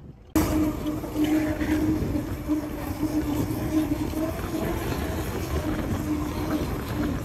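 Steady engine drone and road rumble heard from inside a moving vehicle, cutting in abruptly a moment after the start.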